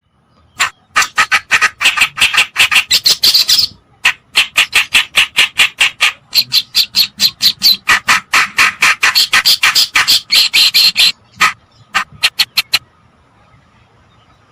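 Recorded song of a kerakbasi (reed warbler) used as a bird lure: harsh, rapid chattering notes, about six or seven a second, in phrases of a few seconds with short breaks, stopping near the end.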